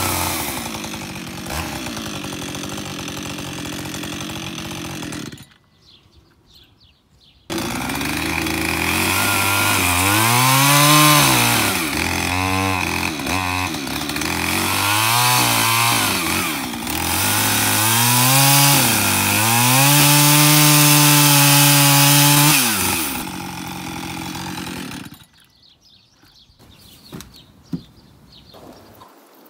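Petrol chainsaw cutting into a wooden log, its engine revving up and down again and again and held at high revs for a few seconds before it stops near the end. The sound drops out for about two seconds, five seconds in.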